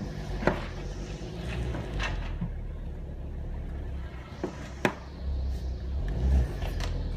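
Porsche Cayenne SUV running at low speed as it is inched back and forth, a steady low rumble. A few sharp knocks cut through, the loudest about half a second in and just before five seconds in.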